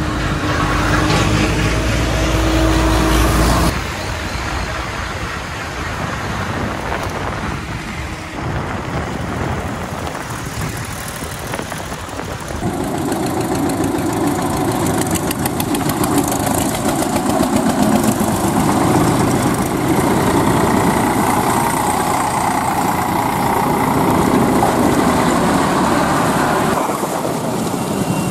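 Farm tractors' diesel engines running as a line of tractors drives past. The sound changes abruptly a couple of times.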